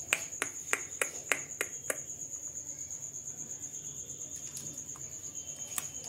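Steady high chirring of a cricket, with a quick run of about seven sharp clicks, roughly three a second, that stops about two seconds in: an Alexandrine parakeet's beak biting at a piece of fruit held out by hand.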